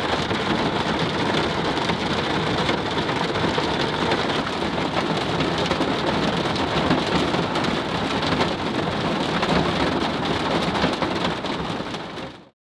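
Heavy rain pouring down in a dense, steady patter, then fading out abruptly just before the end.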